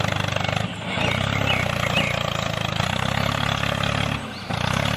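A small motor runs steadily with an even, pulsing hum. It dips briefly twice, about a second in and again near the end.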